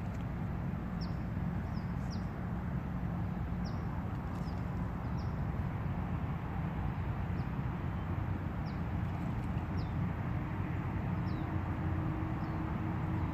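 A bird repeating short, high, downward-sliding chirps about once a second over a steady low rumble.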